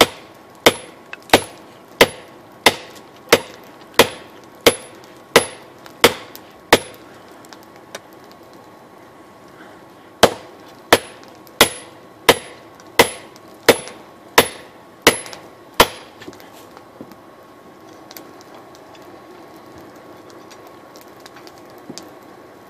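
Hand hammer striking hot steel on a small steel anvil, forging a wrench into a knife blank: sharp ringing blows about one and a half a second, in two runs with a pause of about three seconds between them, then only a steady background hiss for the last several seconds.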